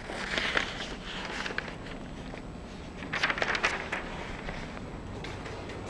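Footsteps of a person walking across a classroom floor, a few soft irregular scuffs and taps over a steady videotape hiss.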